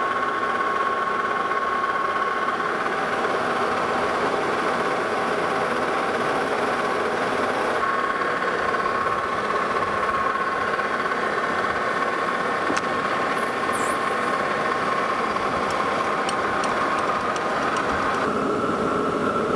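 Metal lathe running steadily with a constant whine from its drive while a cutting tool takes a light finishing pass on a metal bar, turning it to a press-fit diameter. The whine shifts slightly higher in pitch near the end.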